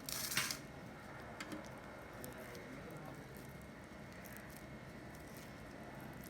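Puffed rice coated in jaggery syrup rustling and crackling as bare hands scoop and press it into balls: one short loud rustle at the start, then faint scattered crackles.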